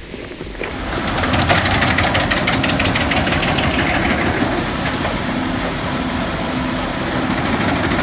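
A heavy machine's engine running steadily with a fast, even pulsing beat. It comes up loudly less than a second in.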